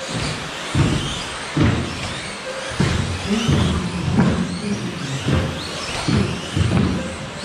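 Several electric 1/10 scale 2WD off-road RC buggies racing, their motors whining up and falling back as they accelerate and brake, with a heavy thud about once a second.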